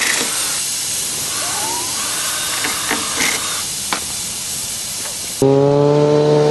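Air hissing steadily out of holes just drilled through a motorcycle's rear tire: the tire is leaking while it stands still. About five seconds in the hiss gives way suddenly to a motorcycle engine running.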